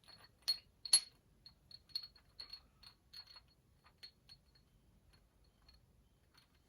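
Small metal transmission parts clinking and clicking against each other as they are handled and set down. The two sharpest ringing clinks come about half a second and a second in, and lighter, scattered clinks follow.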